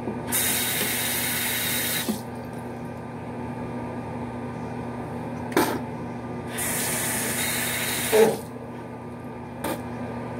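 Bathroom sink tap running twice, about two seconds each time, switched on and off abruptly over a steady low hum, with a couple of short knocks in between.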